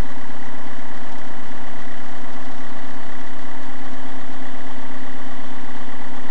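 Engine of a heavy yellow road vehicle idling, a loud, steady drone that does not change.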